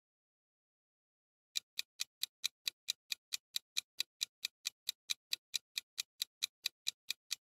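Countdown-timer clock-tick sound effect: quick, even ticks at about four and a half a second, starting about a second and a half in, as the answer time runs down.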